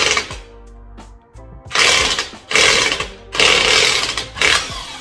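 Cordless impact wrench with a 22 mm socket, running in reverse to loosen a car's lug nuts, hammering in several short bursts.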